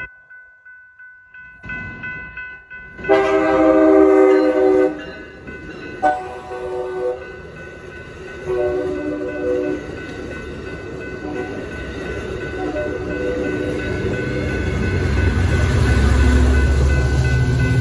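Grade-crossing bells ring steadily while an Amtrak California San Joaquins push-pull passenger train sounds its horn: a long blast of about two seconds a few seconds in, then two shorter blasts. The bilevel cars then clatter past, and near the end the low engine rumble of the rear EMD F59PHI diesel locomotive builds as it passes.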